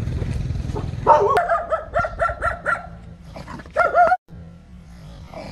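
A dog barking in a quick run of about six high-pitched barks, about four a second, then two more barks a moment later before the sound cuts off abruptly.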